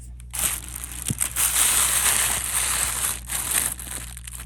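Plastic crinkling and rustling as hands rummage through a bag of loose scrap jewelry, starting about half a second in and easing near the end.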